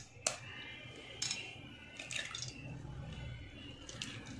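A hen's egg being cracked open over a glass bowl: several short, sharp clicks of the shell, and the egg's contents slipping into the bowl.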